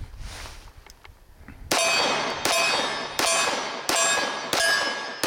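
Six shots from a Commander-size 1911 pistol at a steady pace, each followed by the ring of a steel target being hit and fading out. The first comes nearly two seconds in.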